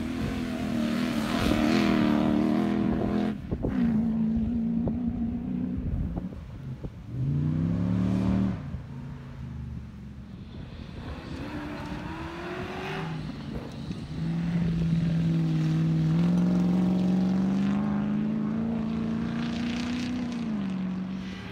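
Engines of off-road comp safari vehicles revving hard as they race, the pitch climbing, holding and dropping as the drivers accelerate and lift off. The engine note breaks off and changes abruptly a few times as one vehicle's run gives way to another's.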